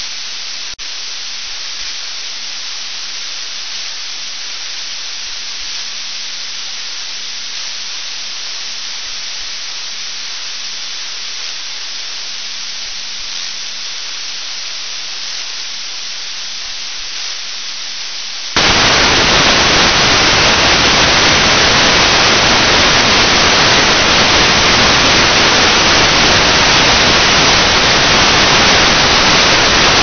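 Weather radio receiver hiss with no voice on NOAA Weather Radio WNG610, with two faint clicks at the start. About two-thirds of the way through, the hiss jumps abruptly to much louder, fuller static as the station goes off the air and the receiver picks up only noise.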